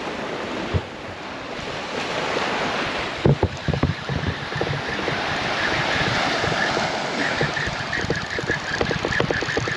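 Surf breaking on the beach, with wind buffeting the microphone. From about three seconds in comes a run of short, irregular knocks and clicks.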